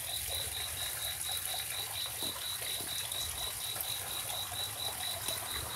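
A cricket chirping steadily in a high, even pulse, roughly four to five chirps a second, over a steady hiss of rain.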